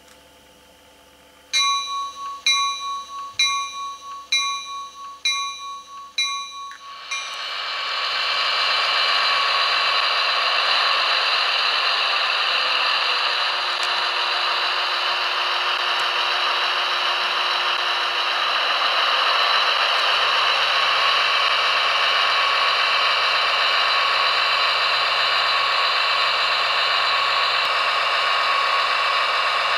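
Sound decoder playback through the small speaker of a Roco H0 scale TEE RAm diesel railcar model. A bell rings repeatedly, roughly twice a second, for about five seconds. The decoder's diesel engine sound then comes up about seven seconds in and runs steadily.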